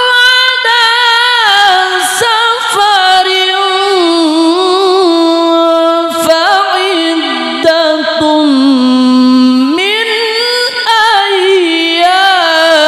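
A male qari reciting the Qur'an in melodic tilawah style through a microphone. He sings one long ornamented phrase on a single long breath, the pitch winding up and down, sinking to a low held note about eight seconds in and then climbing again.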